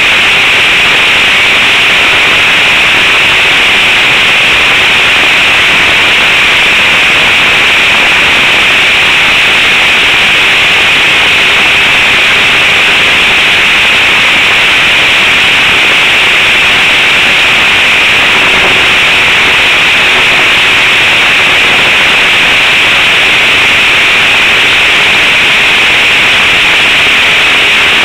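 Model trainer aircraft's engine and propeller running steadily in flight, recorded by a camera mounted on the plane right behind the engine: a loud, unbroken buzz with heavy hiss.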